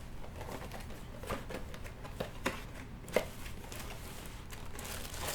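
Light clicks and knocks of hard plastic aquarium parts and packaging being handled, a few separate taps with the sharpest about three seconds in.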